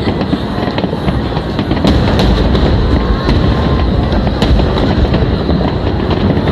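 Finale barrage of aerial firework shells bursting in quick succession: a continuous din of booms with many sharp cracks on top.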